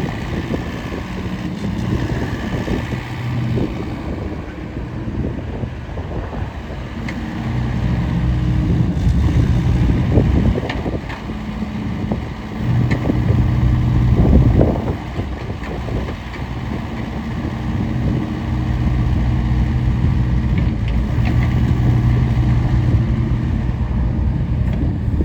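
Case CX60C mini excavator's diesel engine running, its note growing louder for stretches of several seconds and dropping back again.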